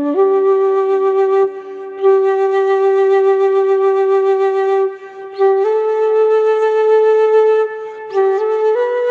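Bamboo flute playing a slow melody of long held notes, with short breaks between phrases and the pitch stepping up a little in the second half.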